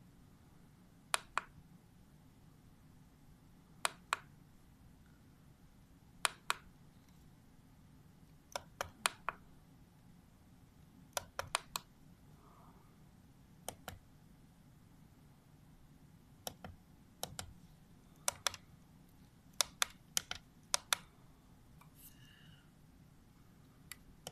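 Sharp clicks in irregular groups of one to four, coming every second or two, over a faint steady low hum.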